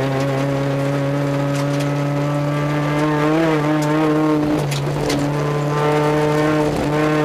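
Rally car's engine heard from inside the cabin, running hard and steady on a gravel stage. Its pitch dips briefly about four and a half seconds in and again near the end. Scattered sharp ticks come from the gravel under the car.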